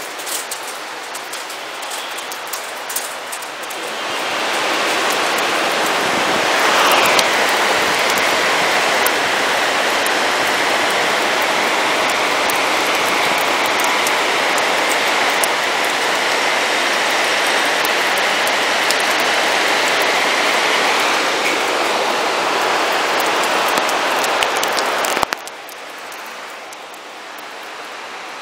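Heavy tropical monsoon downpour: a dense, steady hiss of rain that grows louder about four seconds in. A steady high whistle runs through the middle of it. Near the end the sound drops suddenly to a softer rain hiss.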